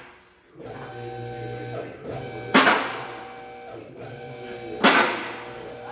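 Two-post car lift raising the vehicle body: its pump motor starts with a steady hum about half a second in, and the lift clanks sharply twice, about every two and a half seconds, as the arms climb.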